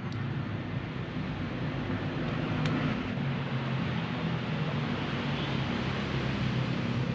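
A steady low engine drone, like a motor running nearby, with two faint light clicks, one at the start and one nearly three seconds in.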